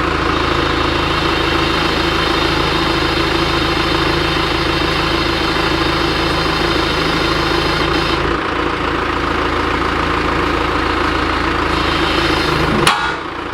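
Backhoe's diesel engine running steadily under load as it forces a wrench against a stuck bulldozer blade bolt. A sharp click sounds near the end, and the engine eases off after it.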